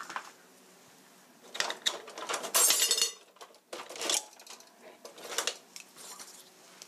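Kitchen handling noises on a tabletop: clinks and knocks of dishes and utensils, with a loud noisy burst around two and a half seconds in and a few shorter ones after.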